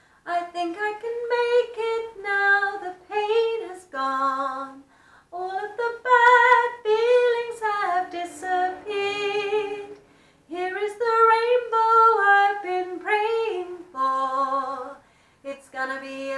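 A woman singing solo, phrase after phrase with short breaths between. She sings the high-voice part of the verse, with words including "all of the bad feelings have disappeared".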